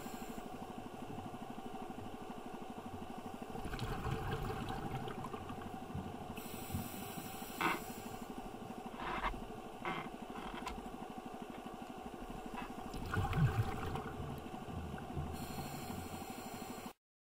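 Underwater ambient noise through a camera housing: a steady mechanical hum with a fast pulsing beat, a few clicks and knocks, cutting off abruptly near the end.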